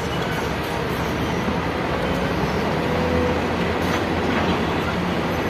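Excavator's diesel engine running steadily with a low hum, with a faint knock or two of the machine working.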